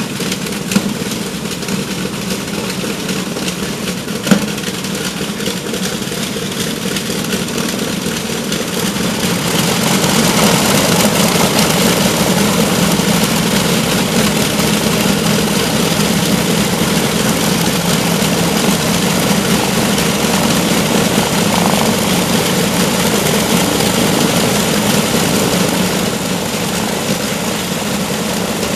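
Wright R-3350 Turbo Compound 18-cylinder radial engines of a Lockheed L-1049G Super Constellation running at idle on start-up, with two sharp knocks in the first few seconds. About ten seconds in the sound grows louder and stays so as another engine fires up, smoking from its exhaust.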